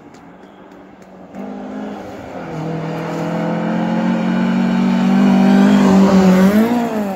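Rally car engine at high revs, approaching on a snowy gravel road: it comes in about a second and a half in and grows steadily louder, then passes close by near the end with the pitch dipping as it goes past.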